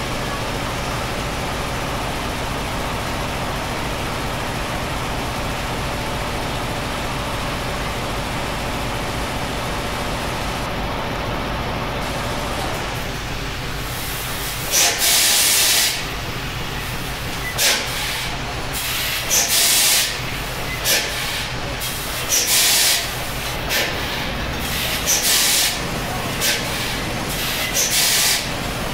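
Irregular blasts of hissing air from an old stationary diesel engine's air piping and valves as it is readied for starting: one long blast of about a second, then about ten short ones. Under them runs a steady mechanical hum whose higher tones drop away about halfway through.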